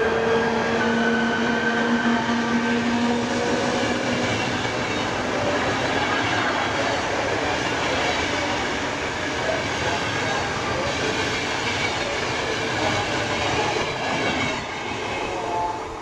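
Czech Railways Class 380 electric locomotive and its passenger coaches passing through a station. A steady electric whine from the locomotive fades over the first few seconds, then the coaches' wheels keep up a steady rolling noise on the rails, which dies away near the end as the last coach goes by.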